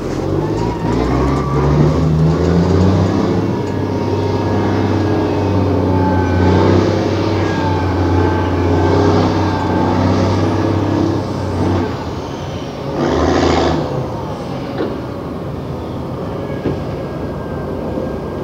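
Large diesel engine of a heavy earthmoving machine running under load, its pitch rising over the first couple of seconds, with a steady whine above it. About 13 seconds in there is a short burst of noise, after which the engine sound drops lower and quieter.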